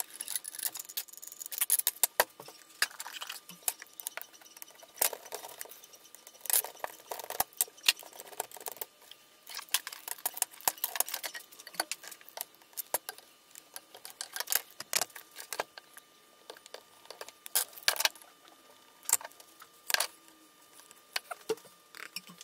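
Irregular clicks, taps and clatters of metal tool parts being handled and set down on a workbench while an angle grinder is taken apart.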